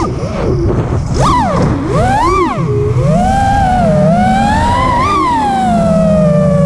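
FPV freestyle quadcopter's brushless motors and propellers whining, heard from on board with wind rush underneath. The pitch swoops up and down sharply with each throttle punch, peaks about five seconds in, then eases down into a steadier, slowly falling whine near the end.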